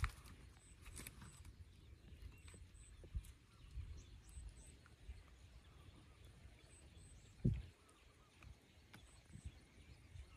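Faint outdoor ambience: a low rumble with scattered light knocks and a louder thump about seven and a half seconds in, and faint high chirps repeating in pairs.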